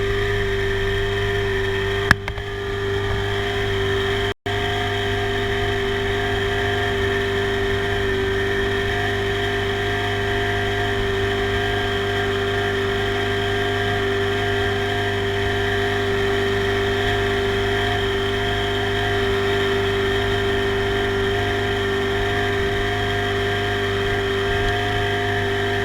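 Small boat engine running at a steady speed, an even drone with an unchanging pitch. A single sharp click sounds about two seconds in.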